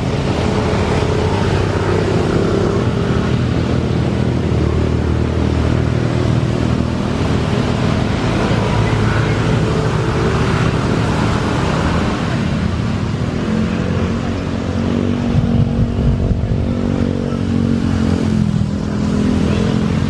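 Twin-engine jet airliner's engines running loud as it rolls along a wet runway, a steady rushing roar with a droning engine tone underneath. In the last few seconds the tone bends and shifts in pitch.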